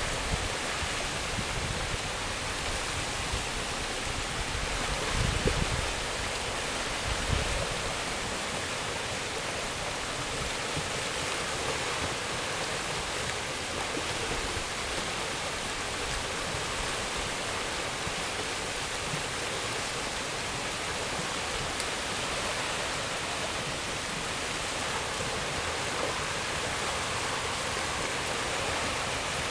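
A river in spate carrying broken ice floes downstream during the spring ice-out, giving a steady rushing sound. A couple of brief low rumbles come in the first several seconds.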